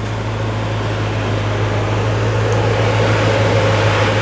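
An off-road vehicle's engine running steadily, an even low hum with a hiss above it and no change in speed.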